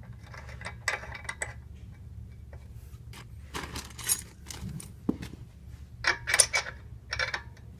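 Metal tools clinking and clicking as they are handled, likely the steel pieces of a crank puller and a wrench knocking together, in irregular bursts with the sharpest clinks in the second half.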